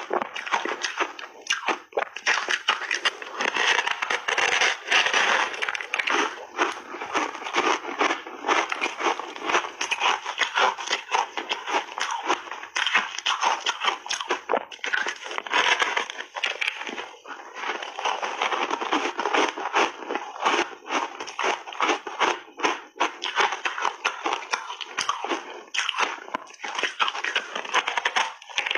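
Close-up crunching and chewing of frozen ice coated thickly in milk powder: a continuous dense crackle of ice breaking between the teeth.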